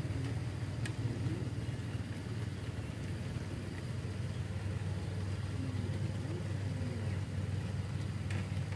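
Steady low hum of an engine running, with a couple of faint clicks.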